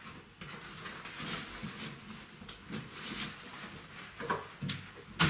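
Czechoslovakian wolfdog puppies moving about and playing: scattered scuffling, rustling and small knocks, with a louder sharp knock just before the end.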